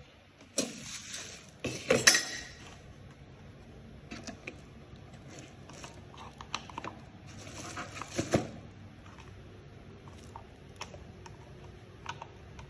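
Hands handling and reconnecting a PAR LED stage light to try it again: scattered clicks, knocks and rustles. The loudest come just after the start, about two seconds in and about eight seconds in.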